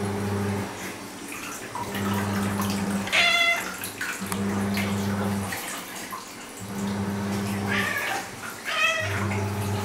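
A cat meowing in short, demanding calls: one about three seconds in and two more close together near the end. Under them runs a low hum that comes and goes about every two seconds.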